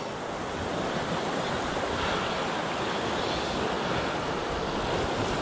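Steady rush of sea surf, with wind.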